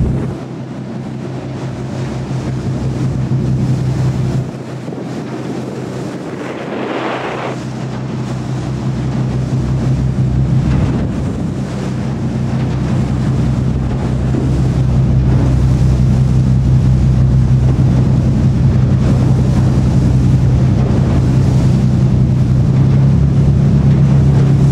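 A boat's engine drones steadily under the rush of water along the hull and wind buffeting the microphone. There is a brief swell of noise about seven seconds in.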